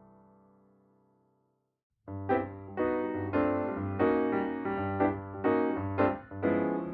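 Background piano music: a held chord fades out, then after about two seconds of silence a gentle piano melody with a steady bass line begins.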